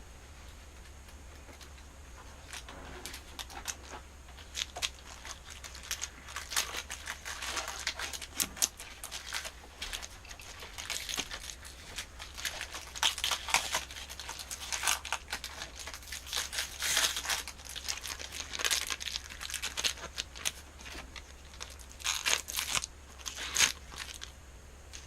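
A Pokémon booster pack's foil wrapper being crinkled and torn open by hand, with irregular crackling that starts about two seconds in and keeps going until just before the end.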